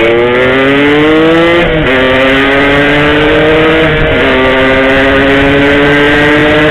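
Yamaha RX-King two-stroke single-cylinder motorcycle engine accelerating under load, its pitch climbing through the gears with two upshifts, one about two seconds in and another about four seconds in.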